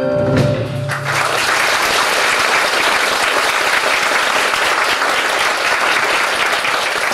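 A live band's final chord stops within the first second, then the club audience applauds steadily.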